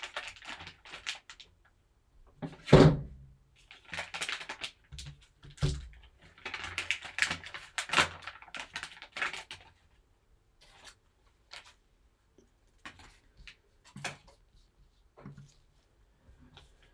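Hands opening and handling sports card packaging: spells of rustling and tearing, a thump about three seconds in and another near six seconds, then scattered light clicks and taps.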